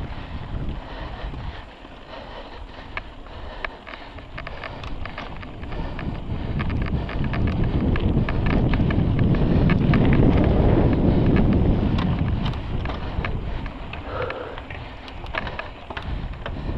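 Mountain bike ridden fast on a dirt trail: wind buffets the microphone with a low rumble that swells and eases in the middle, over a steady run of tyre noise and sharp clicks and rattles from the bike jolting over rough ground.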